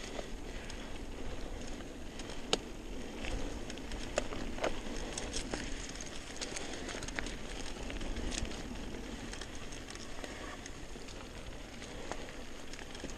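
Mountain bike rolling downhill on a stony dirt singletrack: tyres crunching over loose gravel and rocks, with scattered sharp clicks and knocks from the bike.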